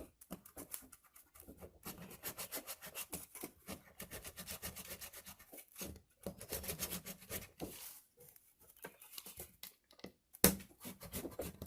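Spline roller being pushed along a window screen frame, pressing the rubber spline and screen mesh down into the groove: runs of quick scratchy clicking and rubbing strokes with short pauses between them. A sharp knock near the end.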